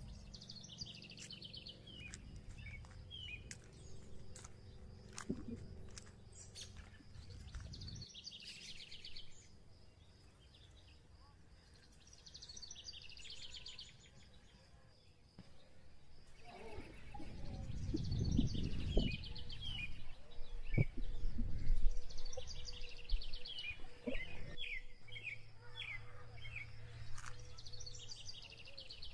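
Birds calling in repeated bursts of quick chirps and trills, over a low rumble of wind on the microphone that grows loudest a little past halfway.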